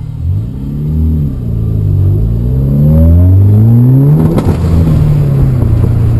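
Mitsubishi Lancer Evolution IX's turbocharged 4G63 four-cylinder accelerating hard, its note rising in a few stages. About four seconds in it breaks into a brief ragged stutter, then settles to a steady lower note. This is the full-throttle misfire, which was traced to failing ignition coils.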